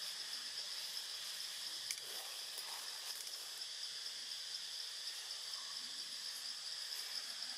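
Steady high-pitched insect buzz of outdoor ambience, one unchanging note, with a single faint click about two seconds in.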